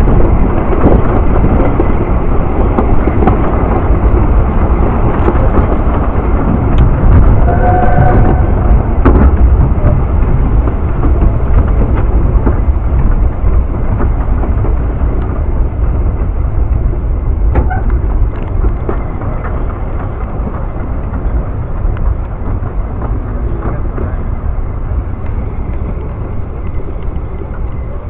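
Narrow-gauge Welsh Highland Railway train running along the line, heard from on board: a loud, steady rumble of the carriage and wheels with wind noise on the microphone, easing slightly in the second half.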